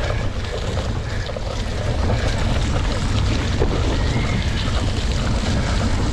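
Wind buffeting a bike-mounted action camera's microphone, with the steady low rumble of a cyclocross bike riding over rough ground.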